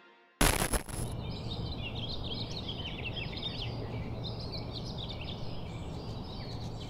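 Outdoor ambience: many small birds chirping over a steady low hum, after a short loud burst of noise about half a second in.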